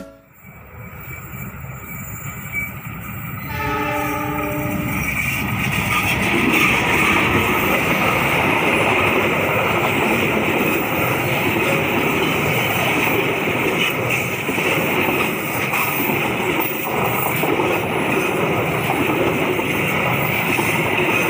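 Argo Parahyangan passenger train approaching and passing close by, with a short horn blast about three and a half seconds in. After that comes the steady rumble and clatter of the passenger cars rolling past, with a high steady ring over the noise.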